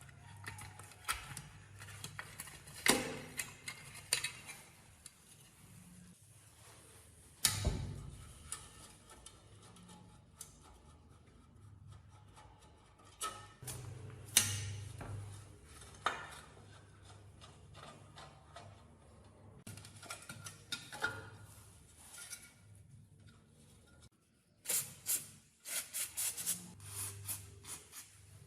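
Metal parts and hand tools clinking, tapping and scraping during hand work on an electric motor, with a faint low hum underneath and a quick run of clicks near the end.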